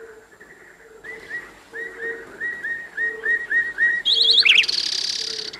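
Birdsong on a cartoon soundtrack: a run of short rising chirps starts about a second in and grows louder. Near the end it gives way to higher, faster trilling calls.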